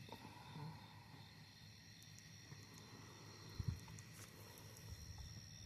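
Faint steady high chirring of night insects, several pitches at once, one of them pulsing about twice a second. A single soft low knock about three and a half seconds in.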